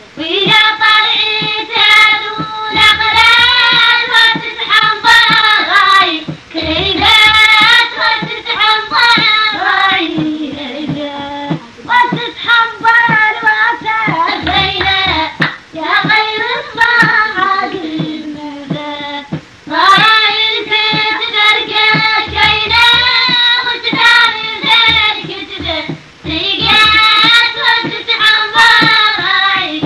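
A high voice singing a melody over music, with brief pauses between phrases and occasional low beats underneath.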